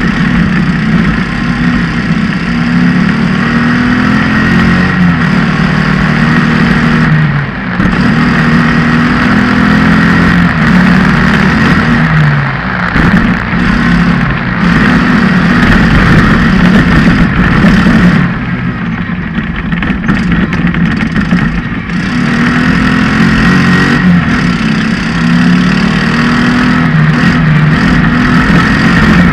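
Off-road race buggy's engine running hard under racing load, heard from a camera mounted on the buggy, its revs climbing and falling again and again. It eases off briefly about seven seconds in and again for a few seconds a little past halfway.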